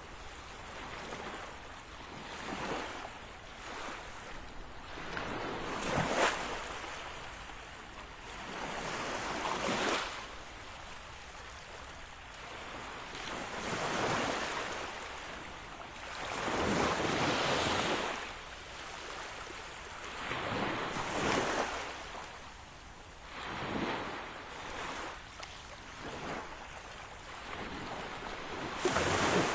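Ocean surf breaking on a beach, a rushing wash that swells and fades every few seconds as each wave comes in.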